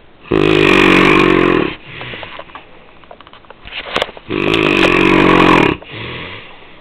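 A man snoring loudly: two long snores about four seconds apart, each lasting about a second and a half, with a quieter breath after each.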